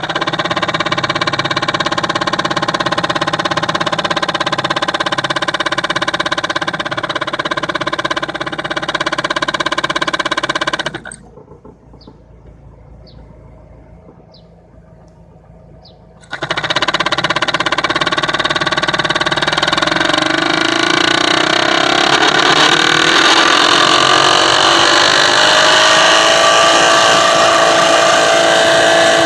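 2008 Nissan Sentra's cabin blower fan running noisily with a whine of several steady tones. It cuts off about eleven seconds in, starts again some five seconds later, and its pitch rises as it speeds up and then holds.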